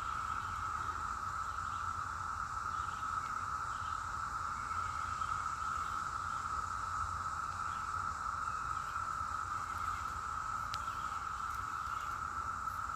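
Chorus of cicadas: a steady, unbroken buzzing drone at one pitch, crazy loud.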